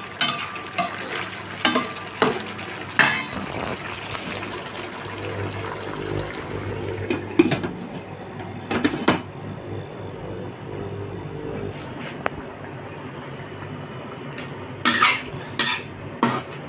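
A metal ladle clinking and scraping against a stainless steel wok as food is stirred, in quick knocks for the first few seconds. Around the middle a glass lid is set onto the wok with a couple of sharper clinks, and near the end three louder clinks of the ladle against the wok.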